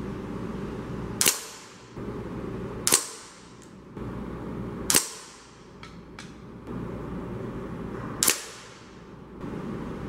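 .177 air rifle firing four sharp shots, one every two to three seconds, each followed by a brief ringing tail.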